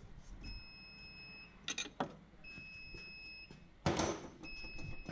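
Auxiliary drive belt being handled and worked off its pulleys: a short rustle about two seconds in and a sharper knock about four seconds in. A faint high whine comes and goes underneath.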